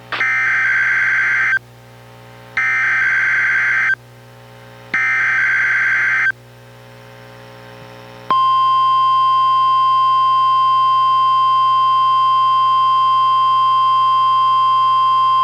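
NOAA Weather Radio Required Weekly Test, played through a weather radio receiver: three SAME digital header bursts, each about a second and a half long, then, about eight seconds in, the steady 1050 Hz warning alarm tone, which holds without a break.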